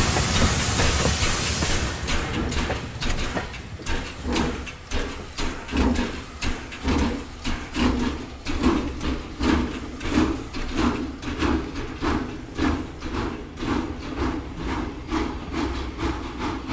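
Steam locomotive: a steady hiss of steam for about two seconds, then rhythmic chuffing at about two beats a second that slowly fades.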